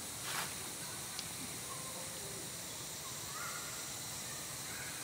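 Forest background: a steady high hiss with a few faint, short calls, and a brief rustle near the start.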